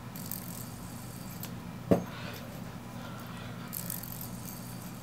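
Fidget spinner whirring on its bearing with a faint high hiss, and one sharp click about two seconds in.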